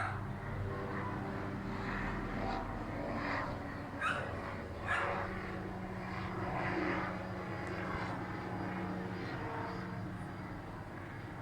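Fixed-wing aircraft engines droning steadily as a plane flies over, with a few short animal calls at the start and about four and five seconds in.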